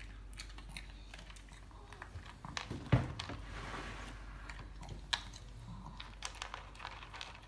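Shih Tzu crunching dry kibble from its bowl: irregular crisp crunches and clicks as it bites. One much louder knock about three seconds in.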